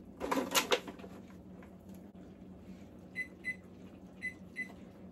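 Four short electronic beeps from a gas range's digital control panel as its buttons are pressed, setting a cooking timer, most likely for five minutes.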